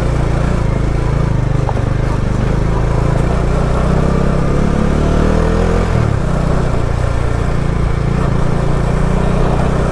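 Bajaj Dominar's single-cylinder engine pulling under load on rough ground, its pitch rising for a couple of seconds about four seconds in, then dropping back just before six seconds.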